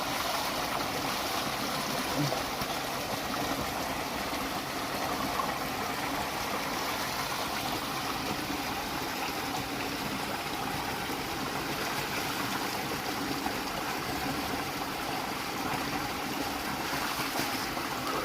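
Steady rush of running water from a waterfall and its stream.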